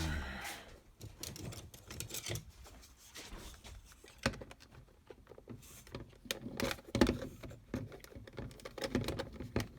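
Scattered small clicks, taps and light rattling from handling a precision screwdriver set: its plastic case and small metal bits.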